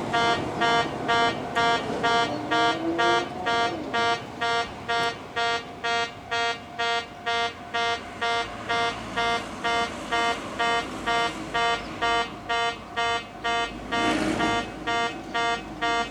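In-station level crossing buzzer at Kintetsu's Kaminogo Station, sounding its distinctive "rupa-rupa" electronic tone, a rich beep repeating evenly about twice a second. About fourteen seconds in, a brief rush of noise cuts across it.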